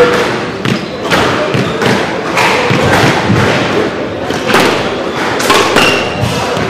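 Squash rally: a squash ball struck by rackets and smacking off the court walls in irregular sharp hits, with shoe squeaks on the wooden floor now and then.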